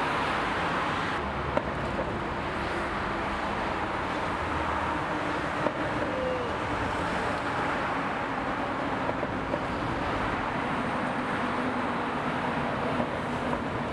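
Steady outdoor urban traffic noise, a constant hum of road vehicles, with a few faint clicks.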